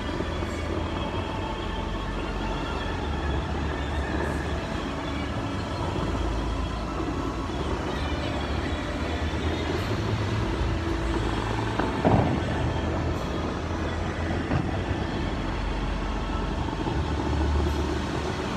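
Bellagio fountain water jets rushing and splashing in a steady roar, over faint show music from the loudspeakers, with a sudden louder burst about twelve seconds in.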